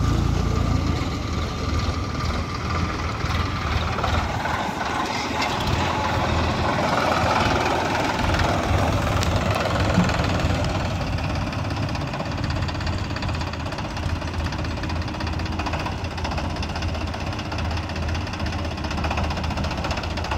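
Diesel engine of a Sonalika DI 42 RX tractor running steadily.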